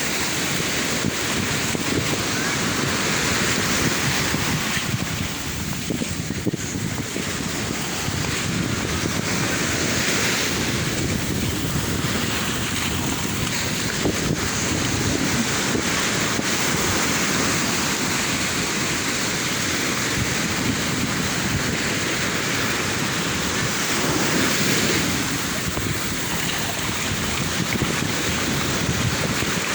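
Sea waves washing and breaking on the shore, swelling and easing every few seconds, with wind buffeting the microphone.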